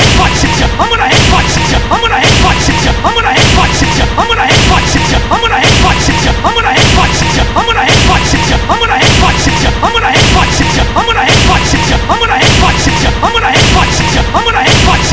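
A short looped clip of cartoon fight audio: a crashing slam sound effect over music, repeating about once a second.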